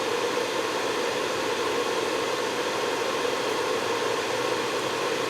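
Steady, even fan-like rushing noise that does not change during the amplifier dyno run; no test tone is heard.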